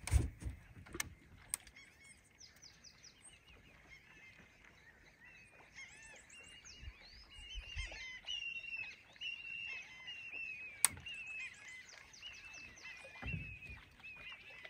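Many birds calling at once, a dense run of short, overlapping chirping calls. A few knocks come at the start, and there is a single sharp click about eleven seconds in.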